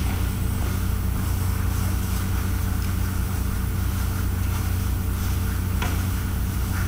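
Steady low machine hum, with a soft click near the end as the honor guard marches off.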